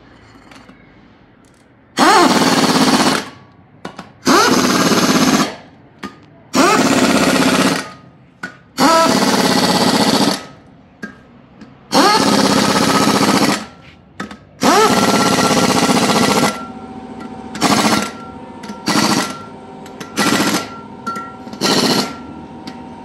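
A power tool run in repeated bursts of about a second, each starting with a rising whine. The bursts come every two seconds or so and turn shorter and quicker near the end, over a steady background hum.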